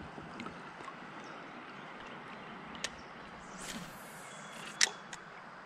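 Quiet river ambience with a few sharp clicks and a short hiss from a spinning rod and reel being handled in a kayak; the loudest click comes near the end.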